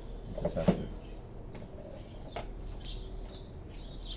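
Hand rivet-nut tool setting a threaded rivet nut into the sheet metal of a car's rear hatch: a sharp click about half a second in, then a few lighter clicks.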